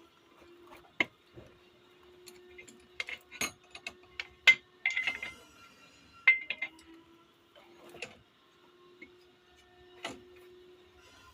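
Scattered sharp clicks and knocks, like metal parts being handled, with two short hissing bursts about five and six seconds in over a faint steady hum.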